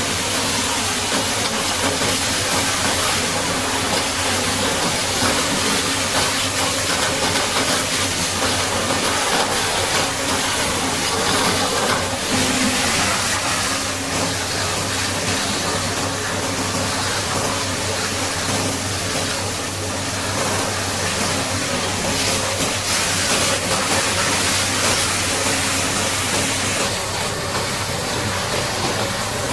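High-pressure water jet spraying hard onto a Caterpillar D8T bulldozer during washing, a loud, steady hiss that swells and eases a little. An engine hums steadily beneath it.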